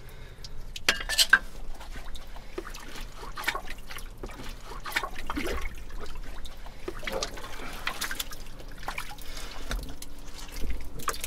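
Digging through waterlogged privy muck: wet liquid trickling and dripping, with irregular splats and clicks throughout and a sharper knock about a second in.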